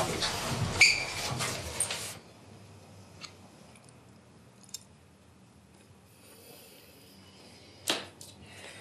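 About two seconds of dense rustling and breathing from a couple grappling against a wall. Then a quiet room with a few light clicks of a metal spoon against a glass jar, the loudest one near the end.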